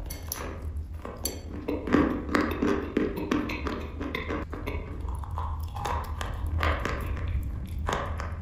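Close-miked crunching and chewing of a dry chalk block coated in cream: a run of sharp crackling clicks as it is bitten and chewed, over a steady low hum.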